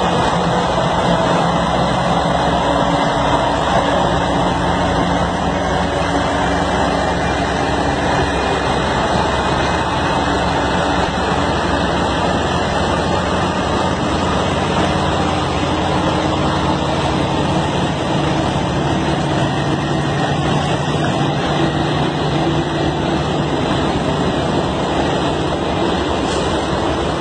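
Heavy truck's diesel engine pulling a multi-axle lowboy loaded with a mining excavator: a steady low engine drone under a constant rushing noise.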